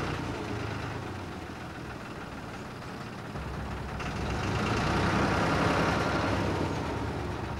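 Narrowboat engine running steadily. It grows louder for a couple of seconds in the middle, then eases off.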